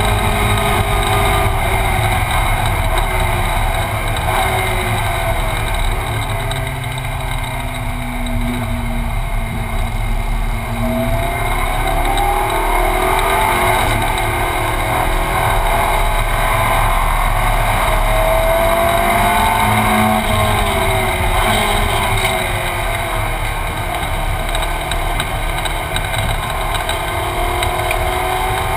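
Ferrari 458 Challenge's 4.5-litre V8 heard from inside the cabin at racing speed. The engine note rises and falls again and again as the car accelerates through the gears and comes off the throttle for the corners.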